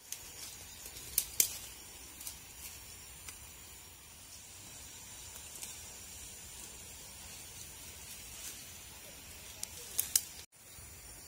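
A few sharp snaps, two about a second in and two near the end, as cowpea pods are picked off the vine, over a steady faint high-pitched drone of insects.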